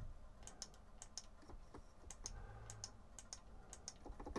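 Faint clicking of the plastic keys of a small MIDI keyboard controller being pressed, a dozen or so irregular clacks, with no notes sounding from the Amiga because it is not yet responding to the MIDI input.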